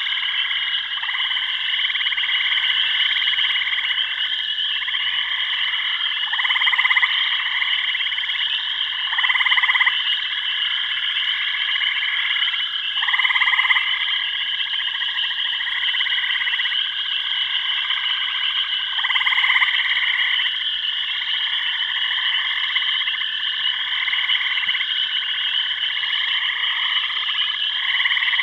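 Dense chorus of frogs calling without a break: a high, steady trill over lower croaking calls that swell louder every few seconds.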